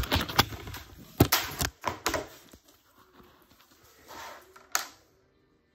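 Irregular sharp clicks and knocks, several close together in the first two seconds, then fading, with one more sharp click near the end.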